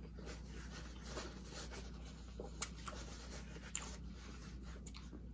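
Faint close-miked chewing with small mouth clicks, and the scratchy rustle of a paper napkin being wiped over the hands, then hands rubbing together.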